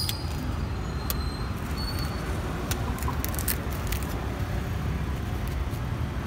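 Long knife cutting and scraping toddy palm fruit, heard as several short crisp clicks, over a steady low rumble.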